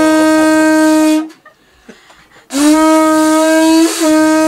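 Conch shell blown as a horn: one steady, loud low blast ends about a second in, and a second long blast at the same pitch starts about halfway through, with a brief break in it.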